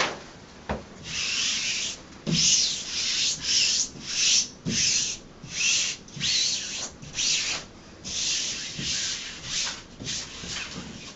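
A peel-and-stick vinyl wall mural being smoothed onto the wall with quick, repeated rubbing strokes, about two a second, to work out the air bubbles. A few soft thumps come in among the strokes.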